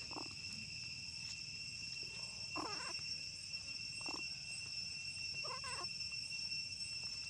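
A monkey giving four short, soft pitched calls spread over several seconds, over a steady high insect buzz.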